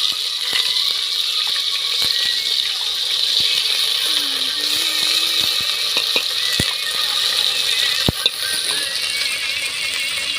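Food sizzling in hot oil: a steady, loud hiss with many small crackles and an occasional sharper pop.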